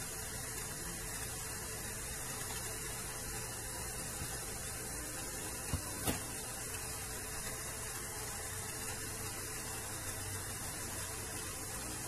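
Steady electrical hiss with a low mains hum, the kind left when an amplifier passes no signal, and two faint clicks a little before the middle.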